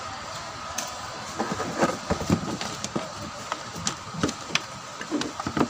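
Irregular knocks, clicks and rattles of a CRT TV circuit board and its wiring being handled and fitted back into the set's chassis, over a steady background noise.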